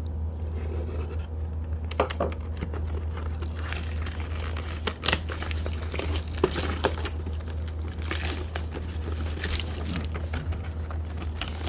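Packaging on a trading card box crinkling and tearing as it is opened, in irregular crackles and rips over a steady low hum.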